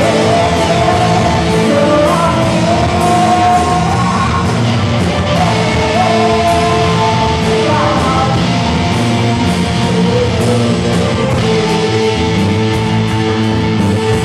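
Rock band playing live: electric guitars and drums with a singer's voice over them, loud and steady.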